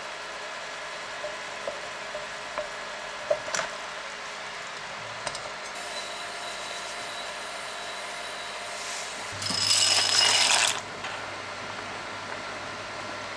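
Kitchen cooking sounds: a spoon clicks and taps lightly against a pan a few times, then dry pasta rattles into a steel saucepan of water for about a second and a half, over a steady low hum.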